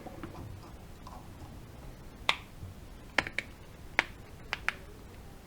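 About six short, sharp clicks and taps at irregular intervals, in pairs in places, the sound of small tools and phone parts being handled and set down on a work surface.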